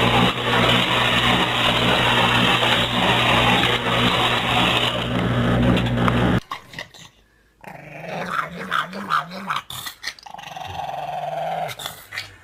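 A steady loud whirring with a low hum that cuts off suddenly about six seconds in. Then a pug growls and grumbles in short wavering bursts.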